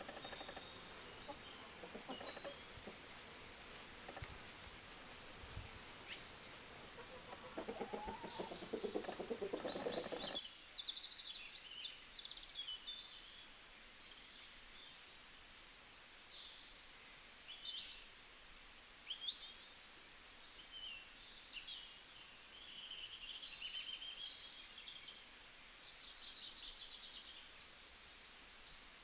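Birds calling over background noise for about ten seconds, then, after a sudden cut, small birds chirping and singing in short high notes against a quiet background.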